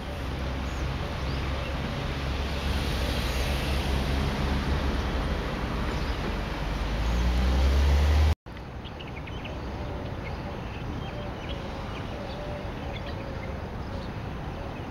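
Road traffic noise: a vehicle's low rumble builds to its loudest about eight seconds in and cuts off suddenly, then a quieter steady traffic hum continues.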